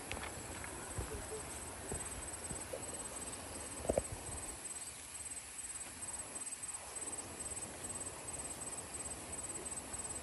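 Insects chirping in a high, fast, even rhythm over quiet outdoor air, with faint footsteps on soil and scattered light knocks; a sharper knock comes about four seconds in.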